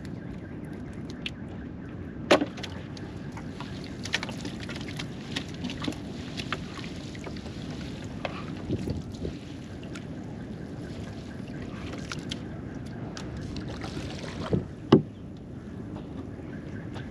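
Small wooden fishing boat being poled through shallow water while a gill net is paid out over the side: steady water swishing and lapping along the hull with scattered light clicks, and two sharp knocks, one about two seconds in and one near the end.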